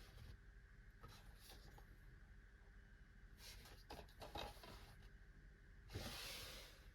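Faint handling noise: a few soft rustles and light clicks of DVD cases being handled, with a slightly louder rustle near the end.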